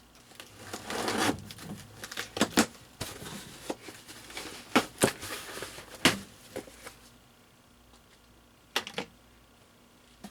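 Cardboard box being opened and its packaging handled by hand: a scraping rustle about a second in, then a series of sharp snaps and knocks.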